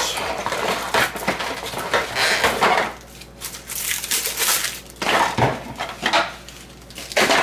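Cardboard packaging rustling and scraping as a plastic powerline adapter is pulled out of its box insert, with a few knocks as the adapter is set down on a wooden tabletop.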